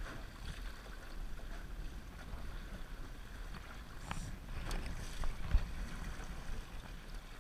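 Water swishing and lapping along the hull of a small aluminium boat moving slowly, with wind rumble on the microphone. A few light knocks come about four to five seconds in, then a louder low thump.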